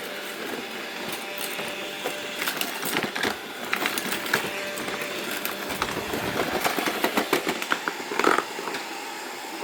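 Robot vacuum cleaners running with a steady motor whir, with frequent clicks and knocks as they bump and struggle on a rug.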